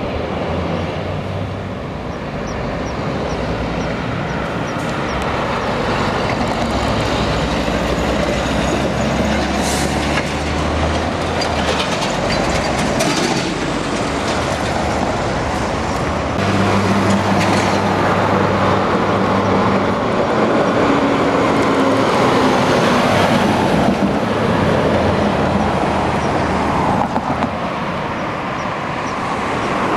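Road traffic passing close by: heavy truck engines and cars running, with tyre noise on asphalt. The noise swells and fades as each vehicle goes past.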